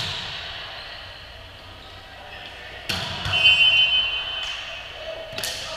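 Volleyball being struck during a rally in a large gym: three sharp hits, at the start, about three seconds in and near the end, with players' voices in the background. A short high squeal comes just after the middle hit.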